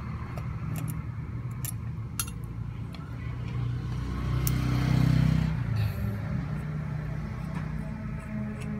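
Light metal clicks from a screwdriver backing out the float-bowl screws of a motorbike carburetor, and a screw set down on the bench, over a steady low rumble like a vehicle engine that swells about five seconds in.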